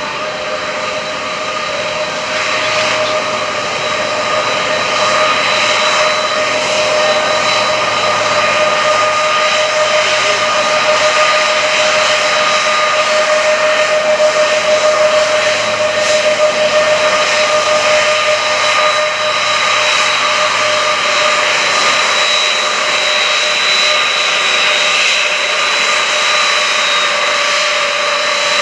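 Lockheed C-5B Galaxy's four TF39 turbofan engines running at taxi power, a steady jet whine with several held tones over a rushing roar, growing louder over the first few seconds as the aircraft turns.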